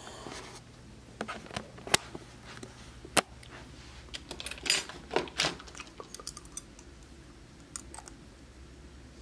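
Handling noise: scattered sharp clicks and knocks, with short bursts of rustling about halfway through, over a low steady hum.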